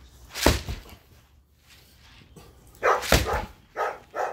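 A dog barking in a quick run of short barks from about three seconds in. A heavy thud about half a second in, and another among the barks.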